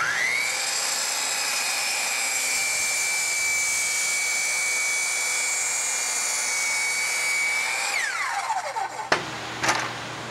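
Kobalt sliding compound miter saw spinning up with a high whine, running steadily for about eight seconds as it cuts through a pressure-treated 4x4 post, then winding down with a falling whine. A few sharp wooden knocks follow near the end.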